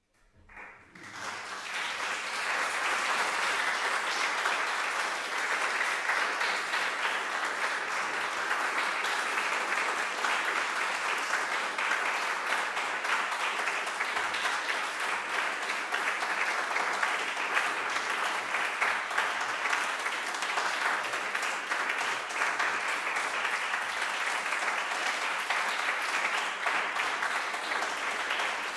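Audience applauding: a few claps at first, swelling within about two seconds into steady, even clapping that holds throughout.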